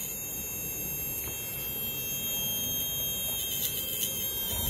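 Steady electrical buzz from a self-switching circuit of 12 V automotive relays driving a toroidal transformer, with thin high-pitched whines above it and a few faint ticks near the end.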